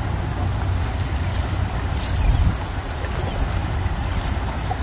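Wind rushing over the microphone, with a steady high insect trill behind it; the rush swells louder about two seconds in.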